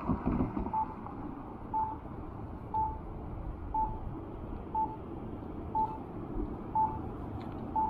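A crossing signal's short electronic beep, one steady tone repeating once a second, over low street noise.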